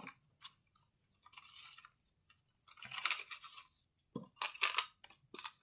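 A cube's box being opened and its packaging handled: two bursts of crinkly rustling, then a quick run of sharp clicks and knocks near the end.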